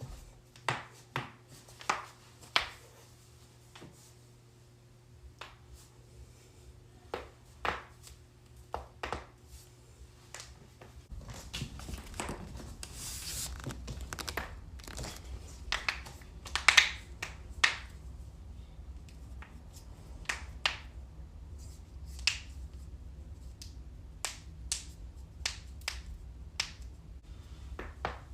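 Joints cracking: sharp single pops at irregular intervals, some in quick runs of two or three. Under them is a low hum that gets louder about eleven seconds in.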